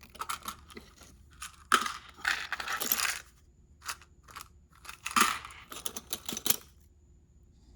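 Small tool parts clinking, rattling and rustling as they are handled and taken out of a toolbox drawer, in several short bursts of clicks and scraping.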